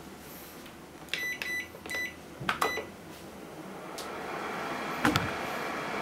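Toshiba microwave oven being set and started: several short electronic beeps from its control panel, a few sharp clicks, then a clunk as it switches on and settles into its steady running hum.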